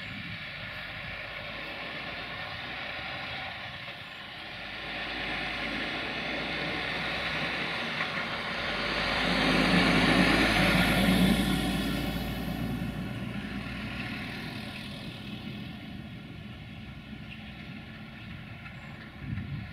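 060-DA (LDE2100) diesel-electric locomotive with a Sulzer twelve-cylinder engine running as it moves slowly while shunting. Its steady engine note grows louder to a peak about halfway through as it comes closest, then eases off. A lorry drives past at the start.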